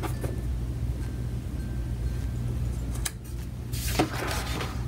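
Paper and sticker handling on a planner page: a few soft taps, then about four seconds in a short rustle of paper as a round sticker is held against the page. A steady low hum runs underneath.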